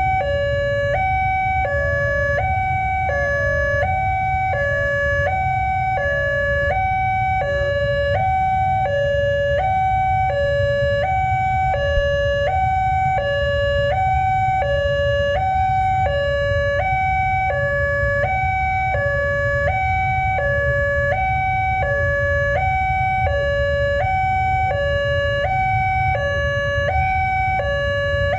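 Railway level-crossing warning siren from a horn loudspeaker on the crossing pole, sounding a steady two-tone alternating wail that switches between a higher and a lower note about every 0.7 seconds: the crossing is closed for an approaching train. A steady low rumble runs beneath it.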